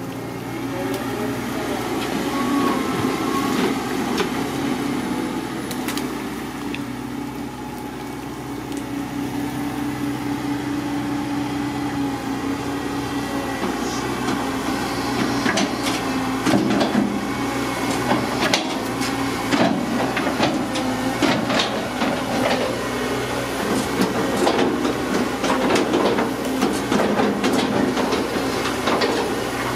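Caterpillar long-reach excavator running with a steady engine hum as it swings its boom and works its bucket into the brush on the canal bank. From about halfway through come many sharp cracks and knocks.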